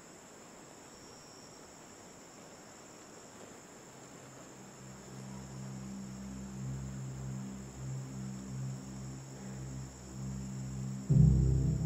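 Steady cricket chirring under a low, sustained ominous music drone that comes in about four and a half seconds in and slowly swells, ending in a sudden deep boom near the end.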